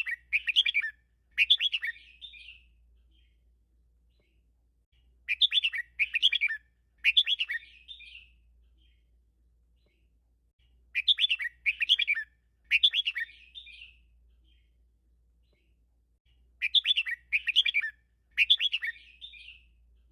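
Red-whiskered bulbul singing a short, quick warbled phrase of three or four note clusters. The phrase repeats four times, about every five and a half seconds.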